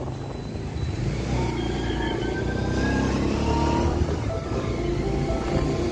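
Motor vehicle travelling on the road: a steady low engine and road rumble. From about a second in, steady tones that step from pitch to pitch sit over it.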